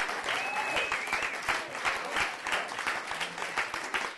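Audience clapping, with a few cheering voices about half a second in.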